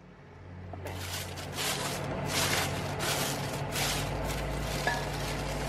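A thin black plastic bag rustling and crinkling in irregular bursts as a hand rummages inside it, over a low steady hum.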